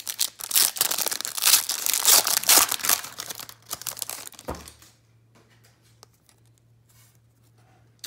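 Foil trading-card pack wrapper being torn open and crinkled, a loud crackling rustle for about four and a half seconds, then only a few faint rustles.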